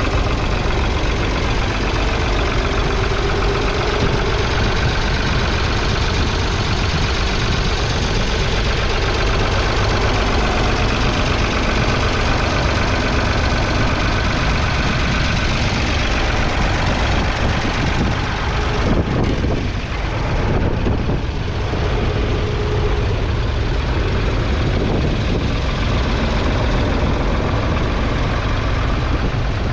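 Ford 3000's 2.9-litre three-cylinder diesel engine running steadily, heard close up, while the tractor pulls a two-furrow mounted plough.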